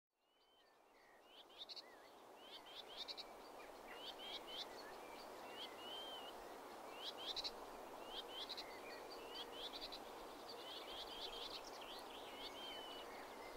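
Common whitethroat singing: short, scratchy chirping phrases repeated every second or so, over a steady background noise. The sound fades in over the first second.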